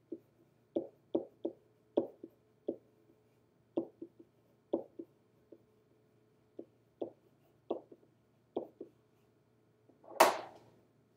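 Pen tapping and scratching against an interactive whiteboard in short, irregular strokes while a word is handwritten on it, followed by one louder, brief rustle near the end.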